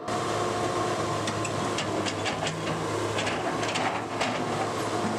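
Komatsu hydraulic excavator working a whole tree into a stream: a steady diesel engine drone with hiss, and scattered clanks and knocks from the machine between about one and four and a half seconds in.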